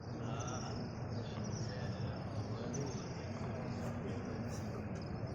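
Dense murmur of a large crowd of many voices, steady throughout, with a high, repeated trilling chirp sounding above it every second or so.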